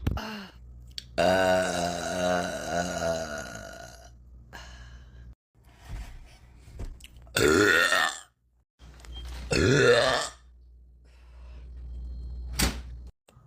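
A woman belching several times: one long wavering belch starting about a second in, then two shorter belches past the middle, and a sharp click near the end.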